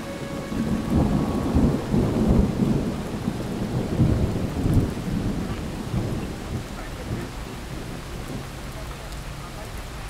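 Steady rain with a deep rumble of thunder that swells over the first few seconds and then fades, leaving the steady hiss of the rain.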